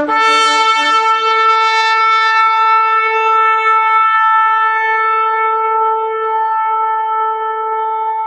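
A shofar, the ram's-horn trumpet, sounding one long, steady blast that starts abruptly, its bright upper overtones slowly thinning as it is held.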